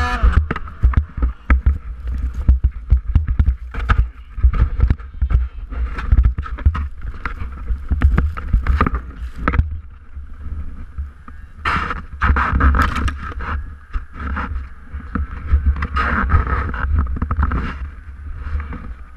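Snowmobile engine cuts off right at the start, then irregular low thumps and rough rustling buffet the helmet-camera microphone as the rider sits in avalanche debris.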